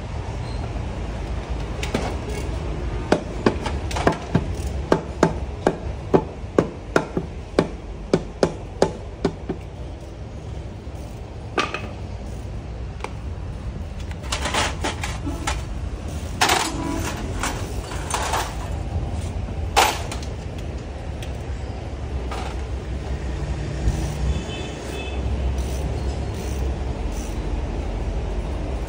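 A run of about fifteen hard hammer blows, roughly two a second, then a few scattered knocks and clanks, over a steady low hum.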